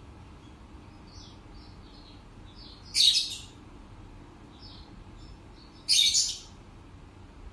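Parrots calling: soft short chirps throughout, with two loud harsh calls about three seconds apart.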